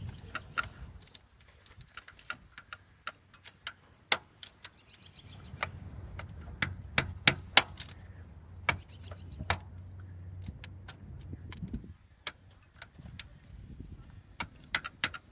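Sharp, irregular metal taps of a hammer driving a screwdriver against the caps on a carburetor's idle mixture screws, a few dozen light clicks scattered throughout. A low steady drone runs under the taps through the middle stretch.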